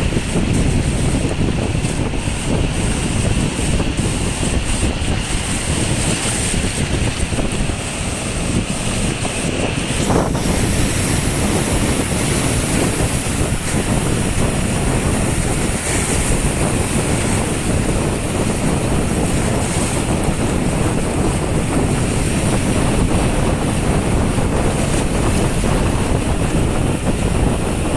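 Strong wind, about 10–12 m/s, buffeting the microphone in a steady low rumble, with waves washing against the shore underneath.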